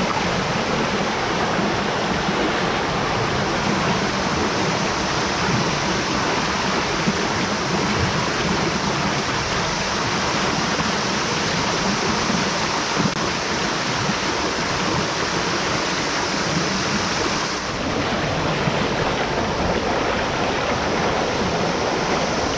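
River water rushing over rocks in shallow rapids, a steady rush of white water.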